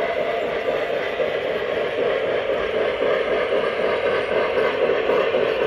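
O-gauge model trains running on three-rail track: a steady rolling noise of wheels and motors as a model steam locomotive and its cars pass close by.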